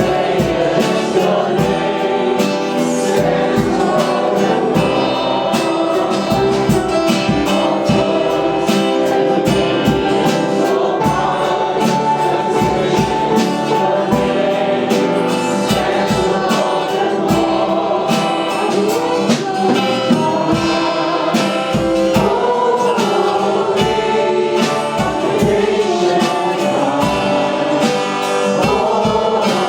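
Gospel-style worship music: a group of voices singing together over instruments, with a steady percussive beat.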